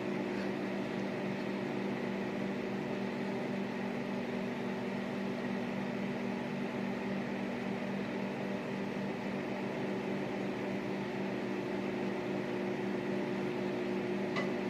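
Microwave oven running with a steady hum, heating two whole eggs in their shells.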